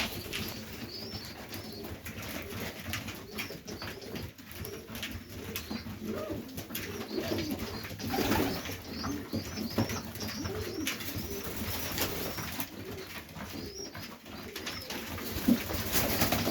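Highflyer pigeons cooing in a loft, many overlapping low coos, with scattered sharp clicks and scuffles among them.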